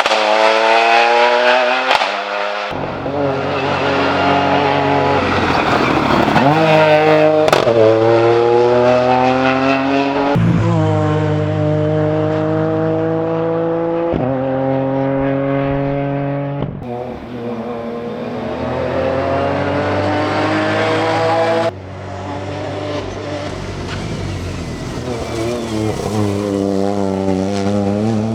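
Ford Fiesta R2T rally car's turbocharged 1.0-litre three-cylinder engine driven hard up a hill. The engine note climbs in pitch through each gear and drops sharply at each gear change, about half a dozen times.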